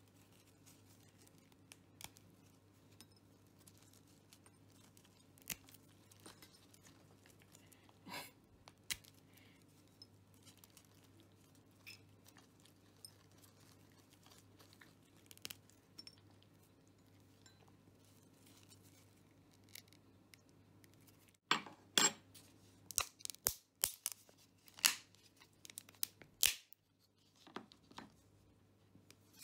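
Plastic food packaging crinkling and crackling in a burst of sharp snaps about two-thirds of the way through, after faint small ticks of hands tearing up crab sticks. A steady low hum runs underneath.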